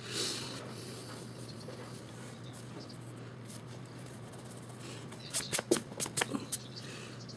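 Hand and eraser working on sketchbook paper. There is a brief scratchy stroke just after the start, then, about five seconds in, a quick run of about eight sharp rubbing strokes across the page. A low steady hum runs underneath.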